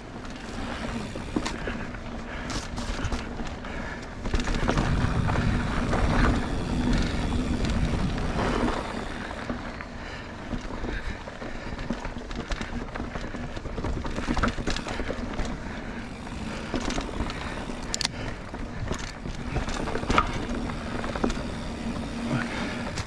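Mountain bike riding singletrack: tyres rolling over dirt with frequent sharp rattles and knocks as the bike goes over bumps, louder for a few seconds near the start.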